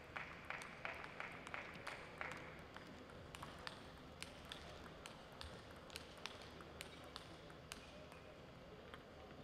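Table tennis ball bouncing in a quick run of light, sharp clicks, about four a second, which stops a little over two seconds in. Scattered single taps and clicks follow in a large, echoing hall.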